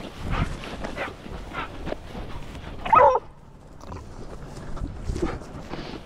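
Footsteps rustling through dry grass, with a hunting hound giving one short, loud yelp about three seconds in.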